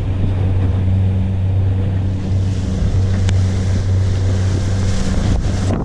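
Yamaha 100 hp outboard motor running steadily with a low hum as the boat travels through ocean swell, with wind rushing over the microphone. A sharp click comes about three seconds in, and a couple of knocks near the end.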